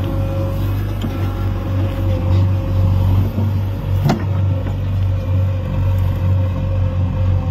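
JCB backhoe loader's diesel engine running steadily as it digs and loads soil, with a strong low hum. A single sharp knock about four seconds in.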